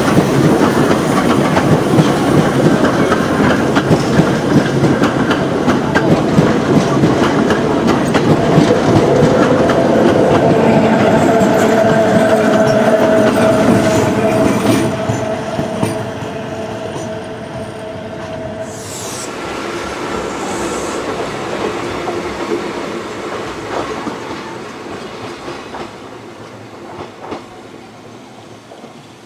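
Train of old passenger coaches with an electric locomotive at the rear rolling past close by, wheels clacking over the rail joints. A steady whine runs through the middle, and the sound fades as the train draws away.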